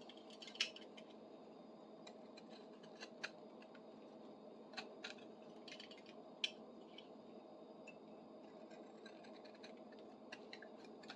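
Very faint, scattered scrapes and clicks of a knife whittling the high spots off a wooden tool handle's tapered end, over a low steady hum.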